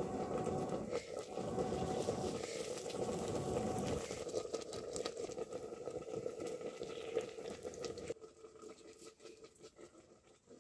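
Oil sizzling in a hot metal ladle set in the embers of a wood fire, with crackles from the fire. The sound cuts off suddenly about eight seconds in, leaving only a faint hiss.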